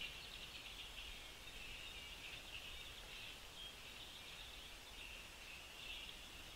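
Faint, continuous high-pitched chirping of small birds, a steady chatter without a break.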